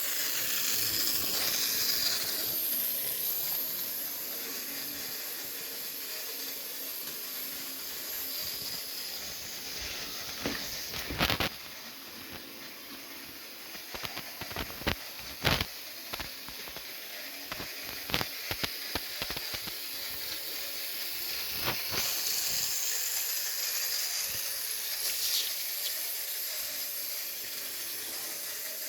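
Model railway train running on its track: a steady hiss, with scattered sharp clicks and clacks in the middle stretch.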